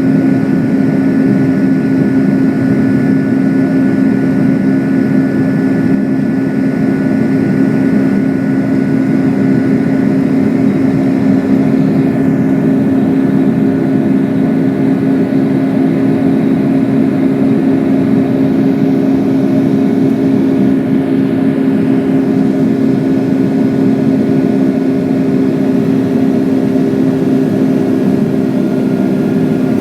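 Boeing 757-200 jet engines heard from inside the cabin, a steady loud drone with a held low tone and fainter high whines as the airliner climbs after takeoff.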